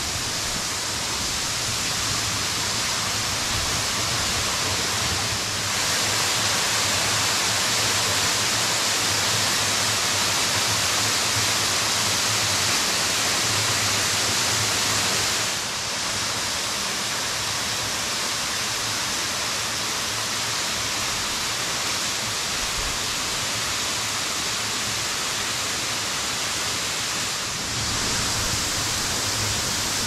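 Momoo Falls, a waterfall with a 23-metre drop, giving a steady, dense rush of falling water. The level steps slightly up or down a few times.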